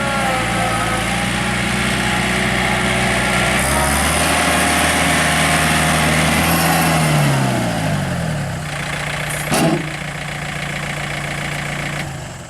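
John Deere 110 tractor loader backhoe's diesel engine running. It speeds up about four seconds in, then slows back to idle, and a single sharp clunk comes about two thirds through. The engine runs down near the end.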